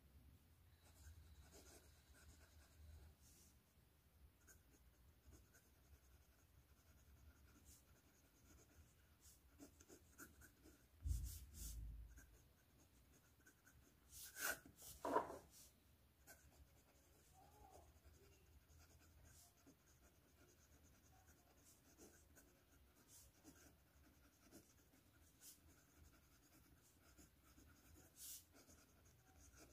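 Faint scratching of a Syahi #6 titanium fountain-pen nib writing on paper, in short strokes with pauses; a nib with noticeable feedback. A low thump about eleven seconds in and two sharp taps a few seconds later are the loudest sounds.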